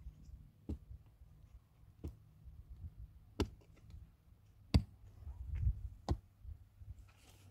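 Sharp knocks repeating at a slow, even pace, about one every second and a half, the loudest nearly five seconds in.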